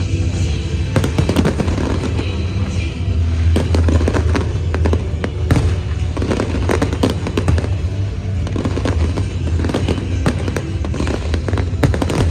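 Fireworks bursting many times in quick succession, with crackling clusters, over music played along with the display that carries a steady low bass.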